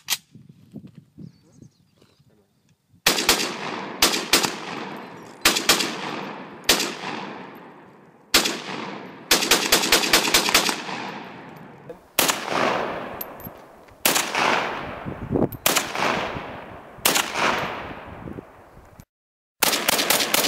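Norinco SKS semi-automatic rifle firing steel-cased 7.62x39 rounds, after a few faint clicks at the start. It fires fast strings and single shots, each crack leaving a long echoing tail. After a brief gap near the end comes another rapid string.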